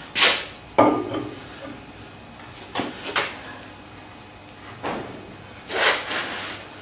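Metal belt pulley on a metal shaper's motor drive being handled and fitted by hand: half a dozen separate clunks and knocks, one with a brief metallic ring about a second in, and a longer scrape near the end.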